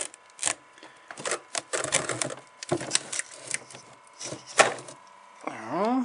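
Irregular clicks and knocks of a plastic motorcycle battery case being handled and moved about, one or two sharper than the rest, over a faint steady whine. A man's voice begins near the end.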